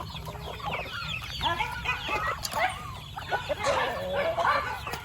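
Flock of chickens clucking, many short calls overlapping without a break.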